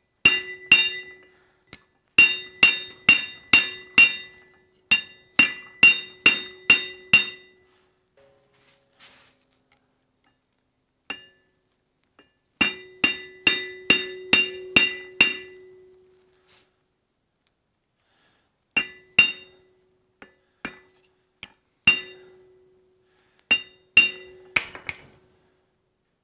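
Hand hammer striking hot steel key stock on an anvil, forging a tapered wedge: runs of ringing blows at about two a second, each leaving a short metallic ring, broken by pauses of a few seconds.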